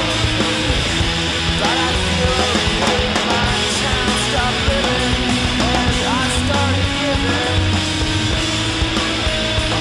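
Loud, steady guitar rock music with distorted electric guitars.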